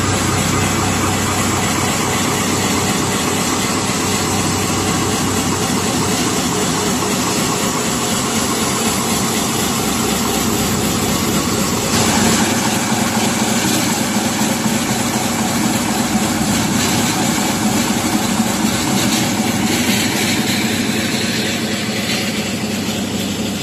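Waste-textile cutting machine with twisted rotary blades running while shredding old clothes: a loud, steady mechanical noise with a low hum under it, changing slightly in character about halfway through.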